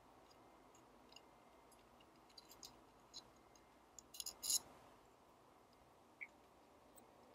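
Faint, scattered small metal clicks and light scrapes as the Leica M3's shutter speed control module is handled and seated on the camera body, with a short cluster of sharper clicks about four seconds in.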